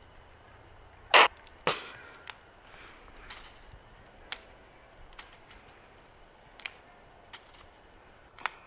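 A dry stick being snapped by hand: a loud crack about a second in and another half a second later, then several smaller, sharper snaps as it is broken into shorter pieces.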